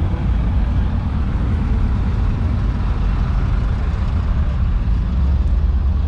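A vehicle engine running steadily with a deep low rumble, a little heavier near the end.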